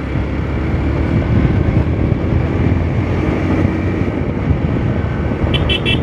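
Motorcycle engine running steadily at road speed, with wind rushing over the microphone. A few short high-pitched beeps sound near the end.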